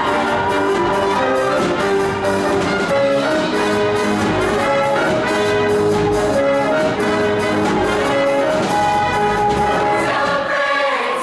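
Show choir singing an upbeat number over a live backing band with brass and a steady drum beat.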